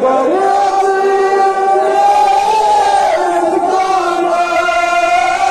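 Voices chanting or singing together, holding long, slowly gliding notes.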